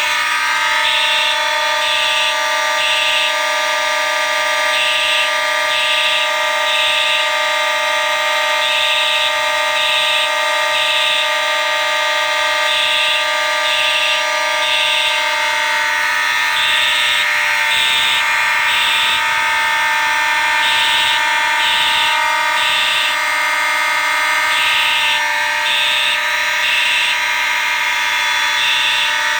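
A bank of Simplex fire alarm horns and horn strobes sounding together, activated from a pull station: a continuous steady horn tone under horns pulsing in the temporal-three pattern, three short blasts then a pause, repeating about every four seconds.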